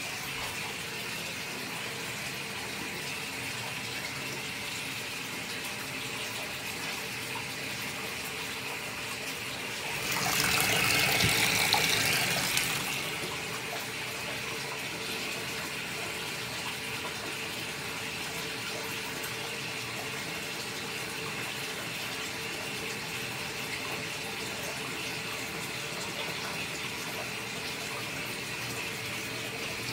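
Steady hiss of running water, getting louder for about three seconds midway through before settling back.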